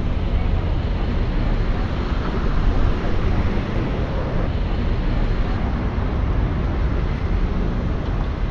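Steady outdoor city ambience: a continuous low rumble with a hiss over it, typical of traffic and wind on a busy street.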